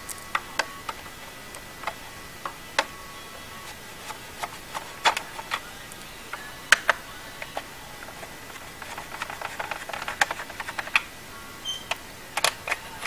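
Scattered clicks and light knocks of screws being taken out of an upright vacuum's plastic base, heaviest for a couple of seconds near the end.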